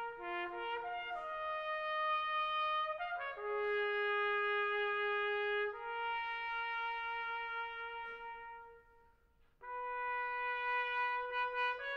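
Solo trumpet playing a slow melody of long held notes, with a pause of about a second near the end before another note comes in.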